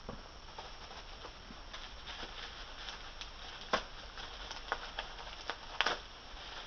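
Light rustling of packaging being unwrapped by hand, with scattered soft clicks and taps, a few of them sharper about halfway through.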